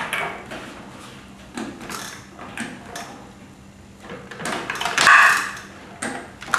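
Cables and plugs being handled at the back of AV equipment: scattered clicks and knocks, with a louder rustling scrape about five seconds in.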